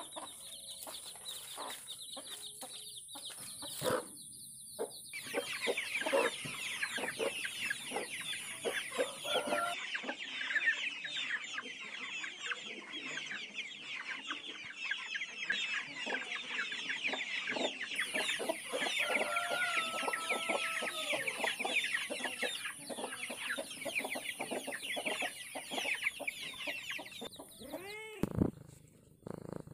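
Chickens clucking, a flock of hens with many quick high chirps overlapping in a dense chatter. It cuts off near the end.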